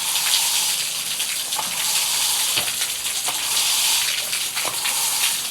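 Heavy rain pouring down in a steady, dense hiss, with a few louder drops splashing close by.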